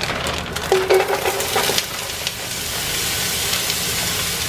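Chunks of pre-cooked chicken tipped from a bag into hot oil in a pot: a clatter of pieces landing in the first two seconds, then steady sizzling of the oil.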